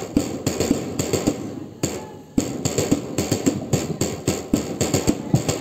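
Drum beating a march rhythm: rapid, sharp strikes several times a second, with a short break about two seconds in.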